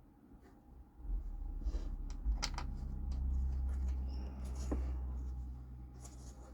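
Handling noises: scattered light clicks and knocks over a low rumble that starts about a second in and fades near the end, as bolts and a plywood plate are worked by hand.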